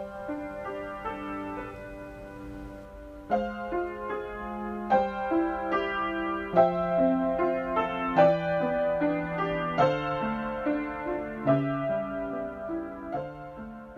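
Solo piano music with single struck notes and chords ringing out, soft at first and fuller from about three seconds in.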